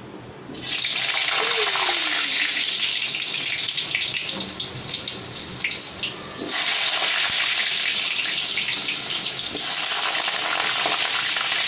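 Potato pieces dropped into hot oil in a kadai, hissing loudly as they start to fry. The sizzle starts under a second in, eases to crackling around the middle, and surges again as more pieces go into the oil.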